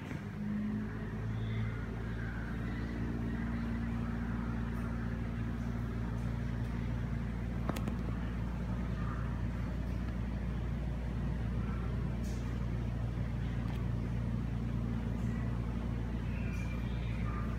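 Eurofan ceiling-mounted bathroom exhaust fan running with a steady low hum and the rush of moving air, with a faint click about eight seconds in.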